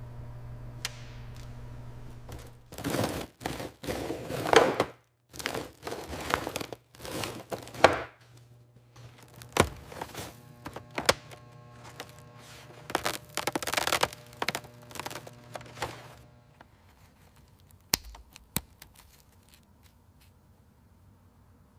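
Hands-on workshop handling sounds: a run of scraping and rustling bursts, then a series of knocks and clicks, over a steady low hum that stops about three quarters of the way through.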